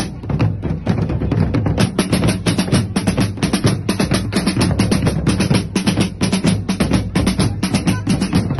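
A street drum troupe playing a fast, steady rhythm together on snare drums and large bass drums struck with sticks, a dense run of loud strokes with a deep drum underneath.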